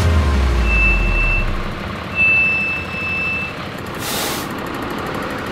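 Truck engine running, with two high electronic beeps, the second longer, typical of a vehicle's reversing alarm. Near the end comes a short sharp hiss of air, like an air brake.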